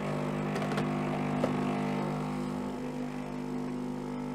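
Philips LatteGo EP5443 espresso machine running, its water pump buzzing in a steady hum, easing a little after about three seconds.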